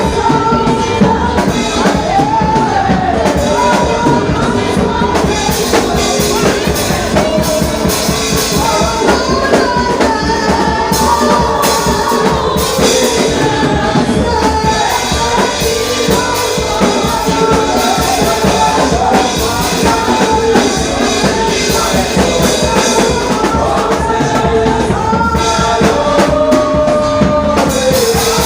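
Gospel praise music: voices singing a melody over a band with drums and other percussion.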